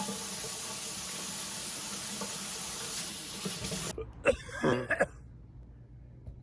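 Water running steadily from a tap, shut off abruptly about four seconds in, followed by two short coughs.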